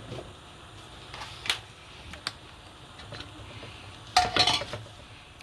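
Kitchen utensils and seasoning containers being handled while cooking: a few scattered light clicks and knocks, then a short burst of clatter about four seconds in.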